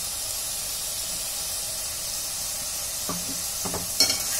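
Chopped coriander leaves sizzling in hot oil in a frying pan, a steady hiss as the leaves wilt and give up their water. A few soft knocks come near the end, then a sharp clack of the spatula against the pan as stirring starts.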